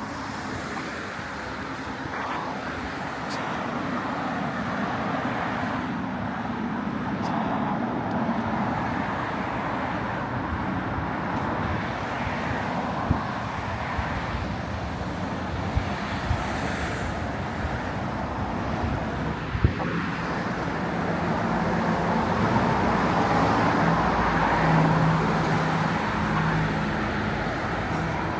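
Street traffic: cars passing with a steady road rumble that grows louder in the later part, where an engine's low hum is heard, plus a few sharp clicks.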